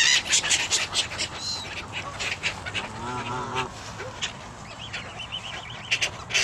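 A flock of Canada geese and gulls calling: a run of goose honks about three seconds in, and short high gull calls near the end, amid other sharp bird cries.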